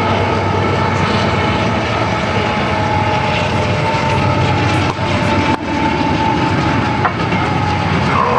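Diesel-electric freight locomotives passing close by, engines running loud with a steady whine over the rumble, and a couple of sharp knocks about five seconds in.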